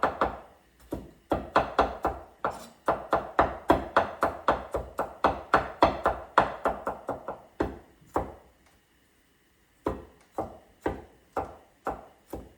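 Kitchen knife chopping bok choy on a cutting board: quick chops about four or five a second, a pause of about two seconds, then slower chops about two a second.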